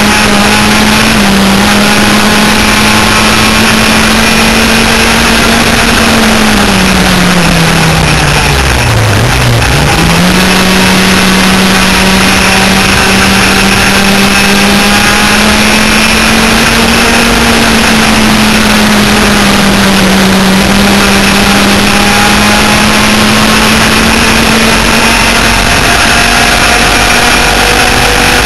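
Twin 100cc two-stroke engines of a B-Stock laydown enduro kart running hard at high revs, heard loud from on board. About eight seconds in the revs fall sharply, then pick straight back up and hold steady.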